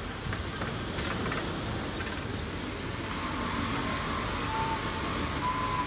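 Steady city ambience: a continuous wash of distant traffic noise, with two brief faint high tones near the end.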